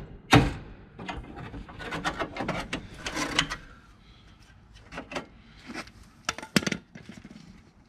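Tools and car parts being handled during work on a car: a sharp knock at the start, a few seconds of clattering and rattling, then scattered single clicks and knocks.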